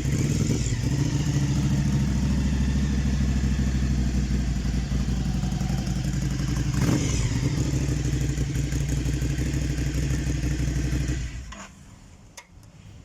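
Ducati Monster 797's air-cooled L-twin engine idling steadily, with a short rise in revs about seven seconds in, then switched off about eleven seconds in; a couple of faint clicks follow.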